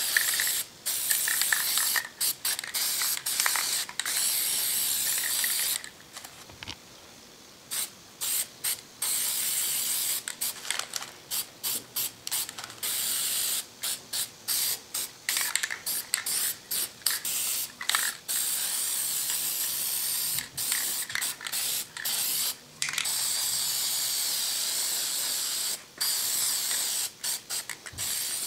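Aerosol spray can of gray primer hissing in repeated spurts, mostly short bursts with a few longer sprays lasting a couple of seconds, separated by brief pauses. There is a quieter lull about six to eight seconds in.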